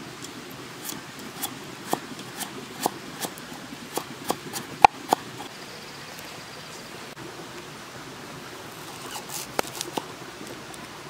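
Large knife chopping on a round wooden chopping board, slicing cucumber and then a red onion, with a sharp knock at each stroke. There are about two knocks a second in the first five seconds, a pause, then a few more knocks near the end, over a steady hiss.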